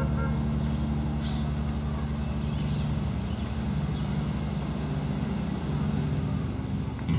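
An engine running at a steady idle, a low even throb that holds through the whole stretch.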